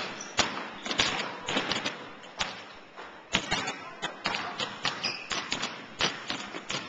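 Basketballs being dribbled on a hardwood gym floor: a run of thuds at uneven intervals.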